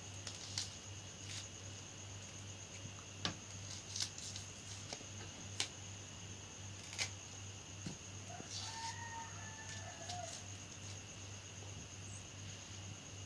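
Quiet background with a steady low electrical hum, broken by about ten scattered light clicks and taps. About two-thirds of the way in, a faint, wavering, drawn-out call lasts about two seconds.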